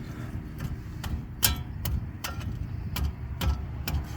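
Irregular metallic clicks and knocks of hand tools on a truck's front brake assembly as a tight part is worked loose, over a low steady rumble.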